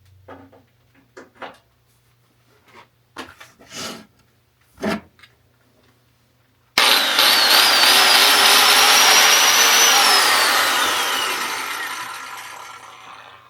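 A few handling knocks, then about seven seconds in a biscuit joiner starts with a high whine, cuts for about three seconds, and is switched off, its whine falling in pitch as the blade spins down.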